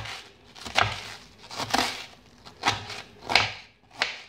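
Kitchen knife shredding white cabbage into thin strips on a wooden cutting board: a crisp crunch and a knock on the board with each of about six slices, a little under a second apart.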